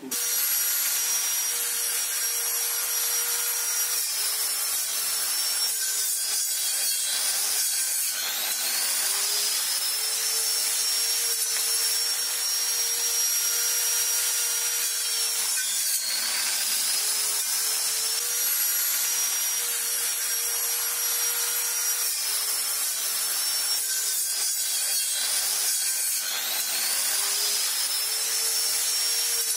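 Homemade electric pole saw switching on and running, cutting into tree branches: its motor whine sags as the blade bites into the wood and climbs back up again, several times over.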